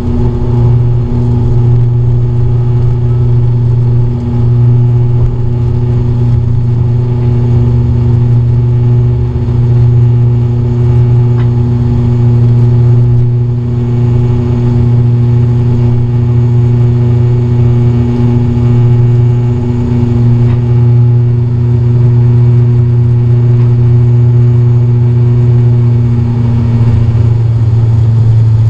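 Cabin noise of an ATR 42-600's Pratt & Whitney PW127 turboprops at takeoff power, heard inside the cabin beside the engine: a loud, steady propeller drone with a deep hum and higher steady tones above it through the takeoff and climb.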